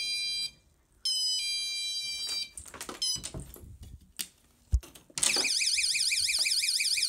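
Battery-powered magnetic door-entry alarm: its chime sounds about a second in, then just after five seconds its alarm setting goes off as a loud, rapidly warbling electronic tone. A short thump comes just before the alarm.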